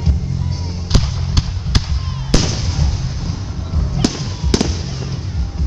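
Fireworks display: aerial shells bursting overhead in a run of about seven sharp bangs, the loudest about two and a half seconds in, over a steady low rumble.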